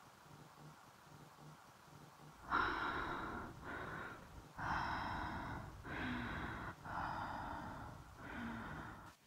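Faint low pulses at a steady rhythm at first, then about two and a half seconds in, loud, harsh, heavy breathing starts: six rasping breaths in and out, each about a second long, in quick succession.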